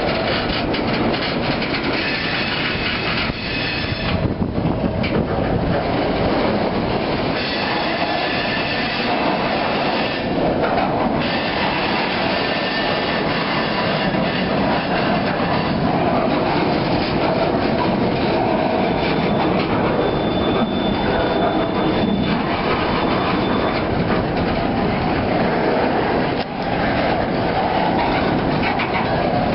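Freight train of boxcars rolling past close by: steady rumble and clatter of steel wheels on the rails. A thin, faint high squeal comes in for a few seconds past the middle.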